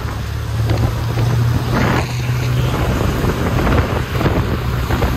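A car on the move: a steady low engine drone under road and wind noise.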